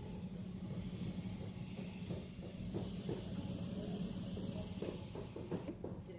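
TIG welding arc on stainless steel pipe hissing steadily, louder from about three seconds in, then cutting off sharply near the end as the arc is broken. A steady low hum runs underneath.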